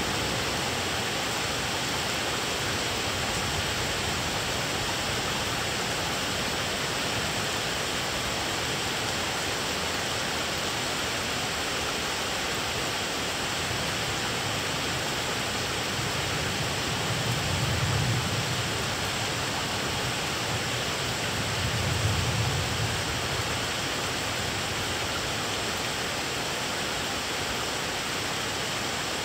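Steady rain falling during a thunderstorm. Thunder rumbles low twice in the second half, about four seconds apart, each swelling and fading over a second or two.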